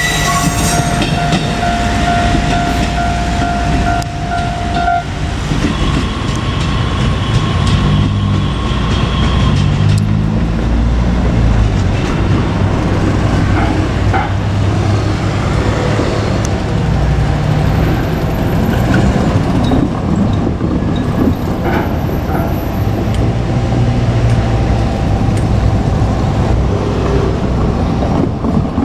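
JR Kyushu trains, a KiHa 200 diesel railcar and an 817-series electric train, running past side by side with a steady rumble and wheel clatter. A diesel engine's note climbs in steps a few times in the first half.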